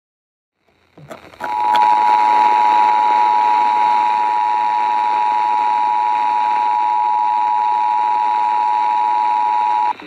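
Emergency Alert System attention signal heard off an FM radio broadcast: a loud, steady two-tone beep over radio hiss, starting about a second and a half in and cutting off abruptly near the end. It announces the start of an emergency alert, here a severe thunderstorm warning.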